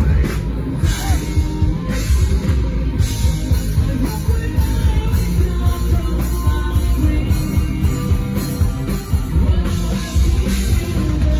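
Rock band playing live, with a drum kit and crashing cymbals driving the song.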